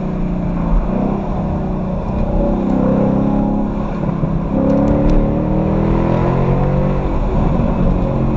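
Ford Mustang GT's V8 engine pulling hard, its pitch rising and falling several times as it accelerates and eases off.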